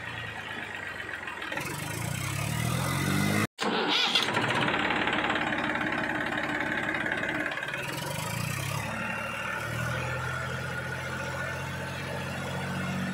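Tractor engine sound running and revving, its pitch rising twice. It drops out for a moment a few seconds in, then runs on steadily.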